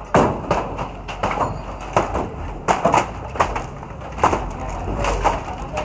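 Irregular hammer blows and banging on wooden boards and corrugated metal sheeting as makeshift stalls are knocked down, about one to two sharp knocks a second.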